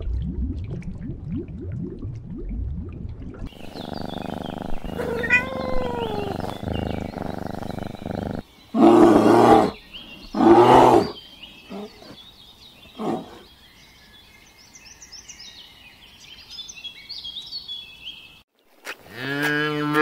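A run of animal calls: low growling, then two loud roars about a second and a half apart, followed by bird chirps, and a cow starting to moo near the end.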